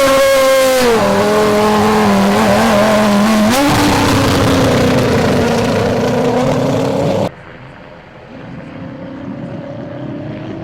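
Red Bull Formula One car's engine, loud, its pitch dropping as the car slows, then climbing again as it accelerates about three and a half seconds in. About seven seconds in the sound cuts off abruptly to a quieter, more distant engine rising slowly in pitch.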